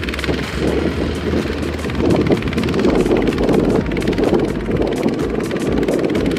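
A two-wheel walking tractor's single-cylinder diesel engine running with a fast, even beat while it works to pull its rice-laden trailer out of the mud, with wind on the microphone.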